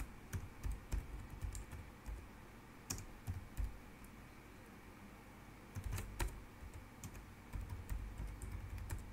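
Typing on a computer keyboard: irregular, fairly quiet keystroke clicks, with a pause of about a second midway.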